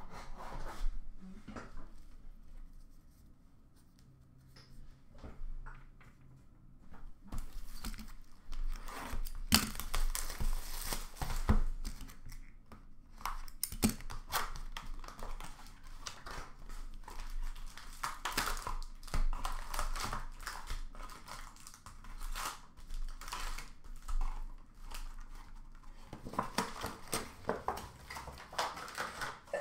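Upper Deck hockey card packaging being torn open and crinkled, with cards handled and set down: a busy run of tearing, rustling and small clicks that starts after a few quieter seconds.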